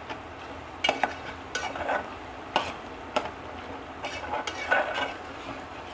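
Metal spoon stirring bottle gourd curry in a stainless steel pot, scraping and knocking against the pot about nine times at an irregular pace. A soft sizzle from the hot, simmering curry runs underneath.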